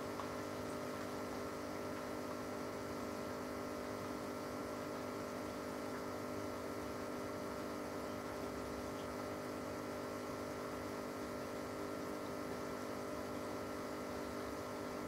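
Aquarium pump running with a steady hum of several fixed tones over a soft hiss.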